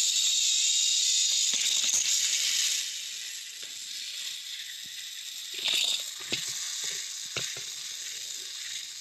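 Small gear motors of battery-powered Plarail toy locomotives whirring and grinding as the engines push against each other on plastic track. The whir drops after about three seconds, and a few clattering knocks come around six and seven and a half seconds in as the toy engines topple.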